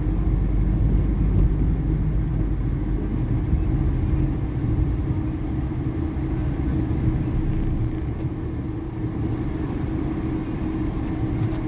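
Steady low rumble of a van's engine and road noise heard inside the cabin while driving, with a faint steady hum over it.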